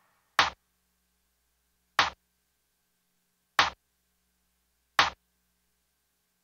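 Clap drum sample triggered in playback from a snare track: four short, dry hits about a second and a half apart.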